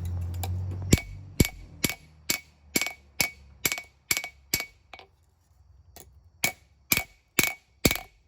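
Hand hammer striking hot spring steel on an anvil, each blow ringing, about two blows a second: ten blows, a short pause, then five more. The steel is being drawn out to widen the heel of a small knife blade. A low rumble is heard in the first second.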